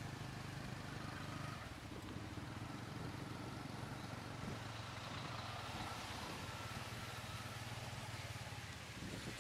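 Motorbike engine pulling a tuk-tuk, running steadily as it rides along, with road noise; its note shifts about a second and a half in.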